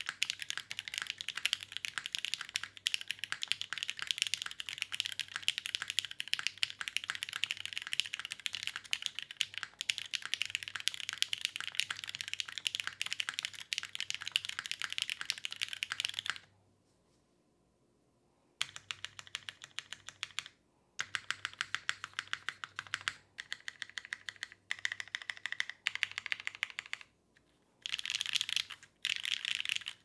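Geonworks F1-8X mechanical keyboard typed on fast: lubed Cherry MX Black linear switches with heavy springs, on an aluminium plate with no dampening, under GMK doubleshot ABS keycaps, giving a dense stream of key clacks. The typing stops for about two seconds just past halfway, then goes on in shorter bursts with brief pauses.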